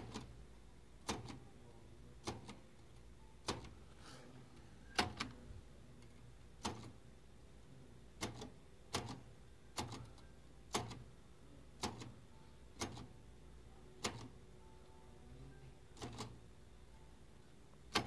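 Keys of a portable manual typewriter struck one at a time: about fifteen sharp clacks at uneven spacing, roughly one a second, some followed by a smaller click.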